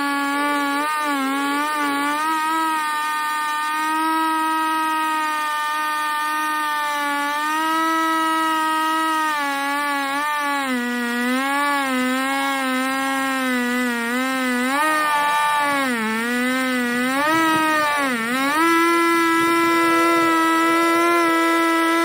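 Husqvarna 395XP two-stroke chainsaw on a 36-inch bar running at full throttle in a long rip cut along a log on an Alaskan chainsaw mill. Its pitch wavers as the chain loads, dips twice about three-quarters of the way through, then holds steady a little higher. The skip-tooth chisel chain is close to due for sharpening after five full-length cuts but still cutting all right.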